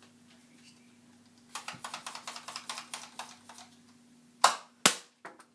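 Buzz Bee Panther air-powered dart blaster being worked: a quick run of clicks for about two seconds, then, about four seconds in, a loud shot with a short burst of air, followed half a second later by a sharp crack.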